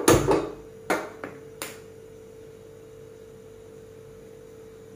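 Handheld spark gas lighter clicking about five times at a gas stove burner in the first two seconds, the first clicks the loudest, lighting the burner. After that a steady faint hum remains.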